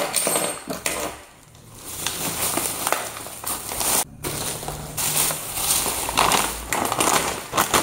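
Thin plastic carrier bags rustling and crinkling as packaged snacks are pulled out of them, with a quieter moment between one and two seconds in.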